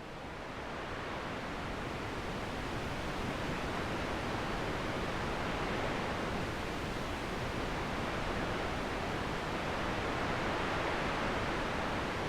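Strong wind blowing, a steady rushing noise with low buffeting on the microphone, rising in over the first couple of seconds.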